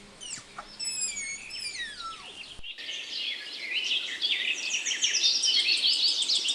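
Tapir giving several high, whistle-like squeals that glide downward in pitch. About two and a half seconds in they cut off and give way to a dense chorus of high chirps.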